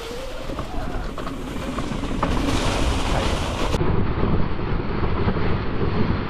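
Electric mountain bike rolling over a rough, leaf-strewn dirt trail: a steady rumble of tyres and rattling bike parts, with scattered small ticks.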